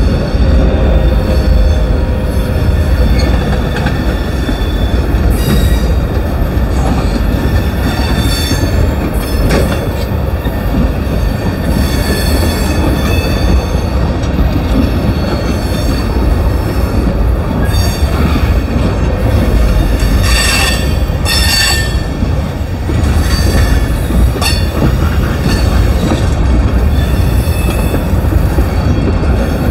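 Freight cars of a Union Pacific train rolling past at close range: a steady, heavy rumble of steel wheels on rail, with high wheel squeal coming and going, loudest about 20 seconds in.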